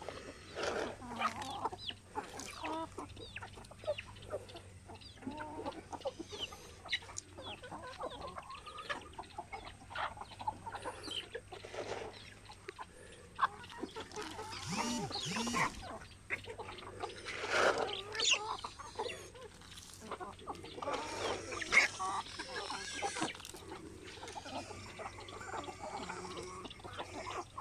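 A mixed flock of hens and roosters (Dekalb, Rhode Island Red, Black Australorp and native chickens) clucking while they peck at feed, with scattered short calls. A few louder calls stand out about halfway through and again later on.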